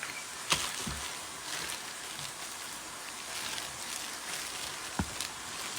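Bacon sizzling in a frying pan, a steady crackling hiss, with two sharp knocks, one about half a second in and one near the end.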